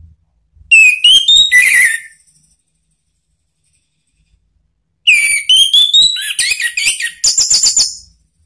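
Orange-headed thrush singing loudly in two phrases of clear whistled notes that glide upward and break into rapid trilled notes. The first phrase is short, about a second in; the second is longer and begins about five seconds in.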